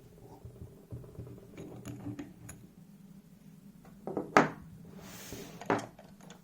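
Light metallic clicks and taps of lock parts and small tools being handled while a high-security disc lock is taken apart. One sharp click stands out about four seconds in, and a second comes just over a second later.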